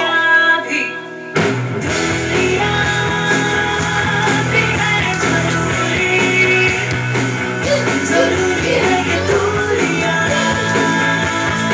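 A song with singing and guitar plays throughout. It gets fuller and louder, with bass coming in, about a second and a half in.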